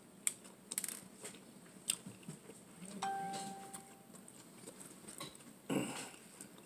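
Eating sounds: a metal fork clicking and scraping in a glass bowl of spaghetti, with one short clear ding about three seconds in and a louder rustling burst near the end.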